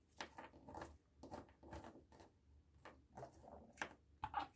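Faint scattered clicks and rustles of foil-wrapped Hershey's Kisses being dropped into and settling in a clear plastic ball ornament.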